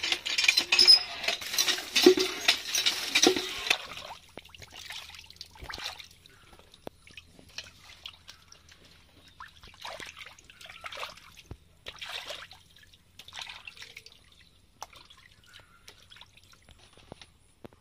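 Pieces of fish being washed by hand in a metal pan of water, swishing and splashing loudly for the first four seconds. After that come scattered short drips and splashes as the dripping pieces are lifted out of the water into a plastic colander.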